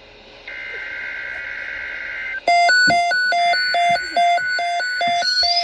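Emergency Alert System SAME header: a burst of two-tone digital data screech lasting about two seconds, then a rapid electronic beeping alert tone, about three beeps a second, stepping in pitch, with a high whine joining near the end.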